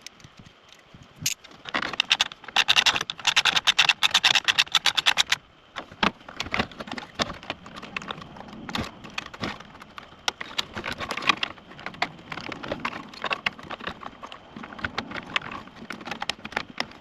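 A fast run of dense clicks lasting about three seconds, then scattered clicks, knocks and light rattles. It is the sound of car radio parts and connectors being handled and worked free.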